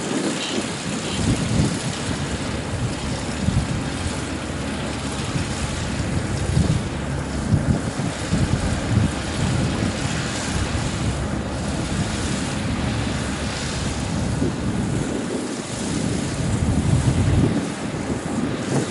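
Kubota ER447 combine harvester running steadily while harvesting wheat, with wind buffeting the microphone in uneven low rumbles.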